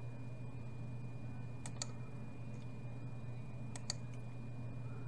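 Computer mouse button clicked twice, about two seconds apart, each a sharp press-and-release pair, with a few fainter ticks. Under it runs a steady low hum and a faint high steady tone.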